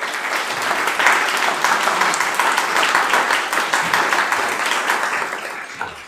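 Audience applauding, with clapping starting at once and fading away near the end.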